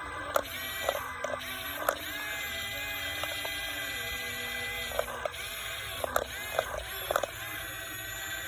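Small electric motors of an RC excavator whining steadily, their pitch stepping up and down a few times as it works, with scattered sharp clicks and knocks from its moving parts.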